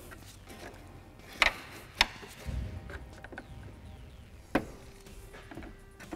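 Plastic grille retaining clips on a 2008 Subaru Outback snapping as a flat-blade screwdriver pries them down to free the grille: three sharp clicks, with a duller knock between the second and third.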